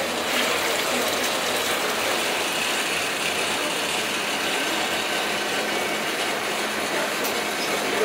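Steady running noise of laboratory test equipment, an even hiss with a faint low electrical hum underneath.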